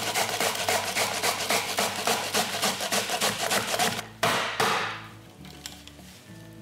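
Fresh ginger being grated on the fine side of a stainless steel box grater: quick, even rasping strokes, several a second, that stop about four seconds in.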